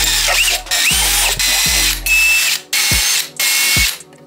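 DeWalt cordless drill boring holes into a black 3D-printed plastic plate, in about five runs that stop and start, the motor's whine rising as it spins up.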